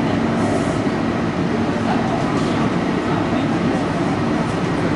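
Taipei Metro C301 train running, heard from inside the car: a steady rumble of wheels and running gear with a faint steady motor tone that comes and goes.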